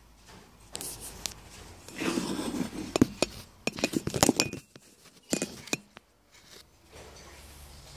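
A run of sharp clinks and knocks from small hard objects, thickest about three to four and a half seconds in, with a few more near the middle.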